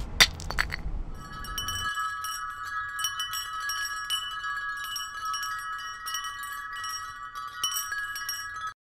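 Wind chimes tinkling steadily in many overlapping strikes, cutting off abruptly near the end. A sharp thump with a short low rumble comes in the first second or two.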